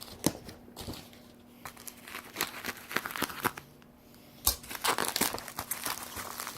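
Packing tape and wrapping on a parcel crinkling and tearing as they are cut and pulled at with a knife, in irregular crackling bursts, with a short pause about two-thirds of the way through before it starts up again more densely.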